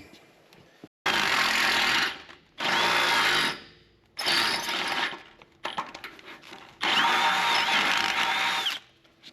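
Electric drill boring out a hole in a steel snow-blade skid to take a bigger pin. It runs in five bursts of about a second each, the last nearly two seconds long, with a faint squeal from the bit in some of them.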